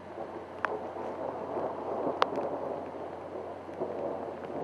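Rain falling: a steady hiss that swells a little in the middle, with two sharp drip-like clicks, one under a second in and one about two seconds in.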